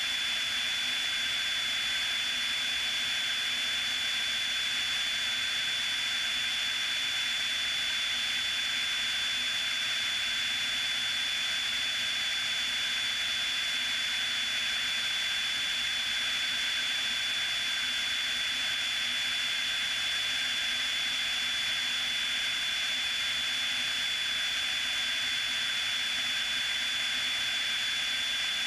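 Steady in-flight noise of a Piper Cherokee single-engine light aircraft in cruise: an even hiss with a thin, steady high whine over it, unchanging throughout.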